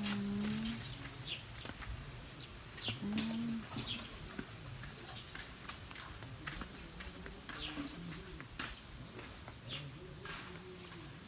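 Small birds chirping in short scattered calls, with a couple of brief low coo-like tones and occasional sharp clicks and knocks.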